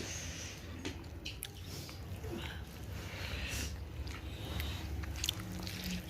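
Close-up chewing and biting of food, with scattered wet mouth clicks and smacks.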